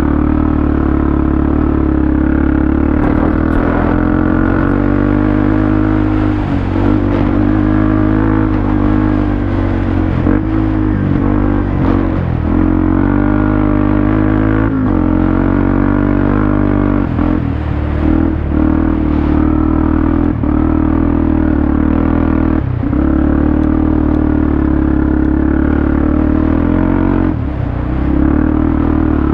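Off-road vehicle engine running under load, its pitch rising and falling with the throttle, with several brief dips where the throttle is let off.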